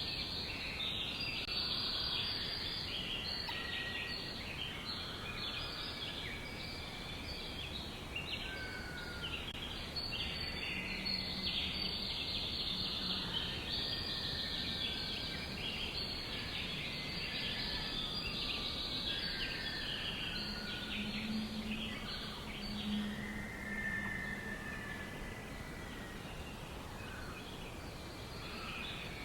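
Many songbirds chirping and twittering at once in a dense, continuous chorus, with an occasional longer whistled note.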